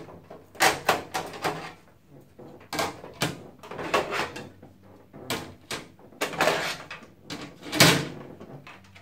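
Panels of a computer case being pulled off and set down: a series of knocks and clatters in about half a dozen clusters, the loudest near the end.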